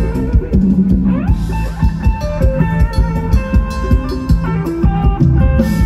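Live band playing upbeat Thai ramwong dance music: a drum kit keeps a steady, even beat under a melody of held and gliding notes.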